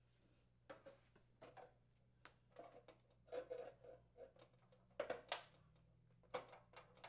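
Faint clicks and scrapes of gloved hands working a knockout plug out of a PTAC subbase's sheet-metal junction box, a string of small handling noises with the loudest about five seconds in.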